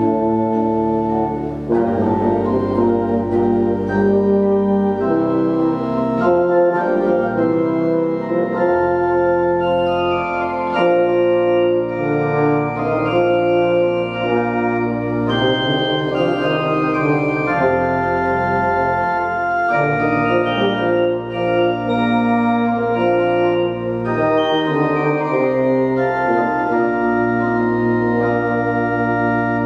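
Organ and euphonium playing a slow piece in held chords over a sustained deep bass line.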